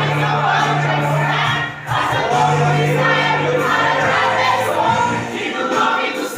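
Pentecostal worship song: several voices singing together over a band, with held bass notes underneath and a brief drop in level about two seconds in.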